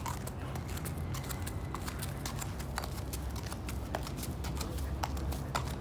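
Horse's hooves clip-clopping at a walk, a run of irregular hoof strikes over a steady low rumble.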